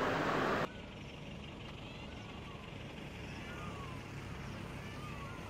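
A loud rush of noise cuts off suddenly under a second in. It leaves a quiet outdoor background with several short, falling whistled calls from a bird, about one every second or so.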